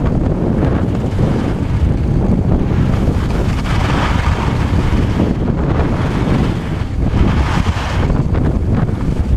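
Wind buffeting the microphone of a skier's body-mounted camera during a fast downhill run. The hiss of skis running over firm groomed snow swells twice.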